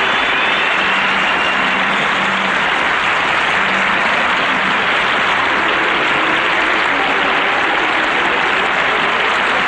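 A large concert audience applauding and cheering steadily, with a whistle or two near the start.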